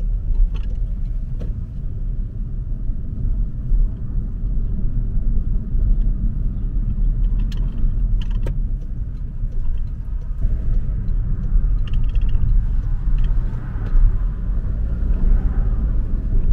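A car driving slowly: a steady low rumble of engine and road noise, with a few faint clicks.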